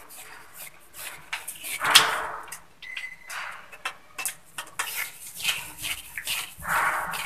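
Hand screwdriver tightening a screw into a wall plug in a tiled wall: irregular clicks, creaks and scrapes as the screw turns, the loudest about two seconds in.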